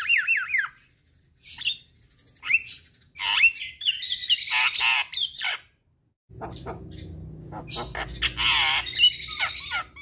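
Javan myna singing a varied run of harsh squawks, chirps and quick falling whistles, in several bursts with short pauses. After a brief dropout about six seconds in, a low hum sits under the calls.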